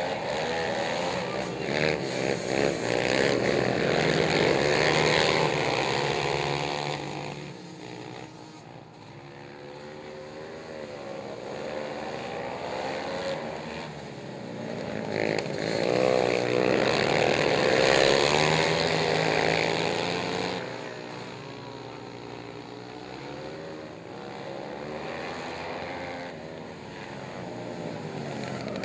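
Several racing ATV engines revving hard and shifting up and down in pitch as the pack races around a dirt oval. The sound swells loud twice as the quads pass close, then fades as they move away down the track.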